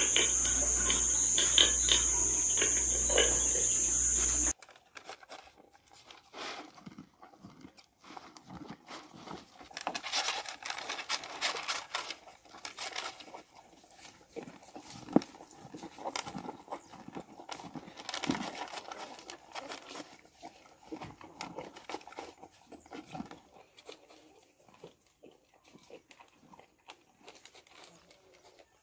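A steady, high insect chorus for the first few seconds, which cuts off suddenly. After it comes an animal eating grain pellets from a plastic feed tub, with irregular crunching, clicking and scraping in bursts that fade toward the end.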